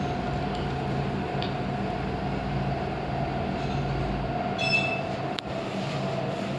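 Otis passenger lift car travelling down its shaft, a steady ride hum with a held whine. A short high tone sounds about three-quarters of the way through, followed by a single click.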